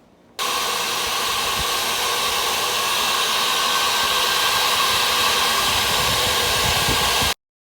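Electric power woodworking tool running steadily at full speed, a loud even whir. It starts about half a second in and cuts off abruptly near the end.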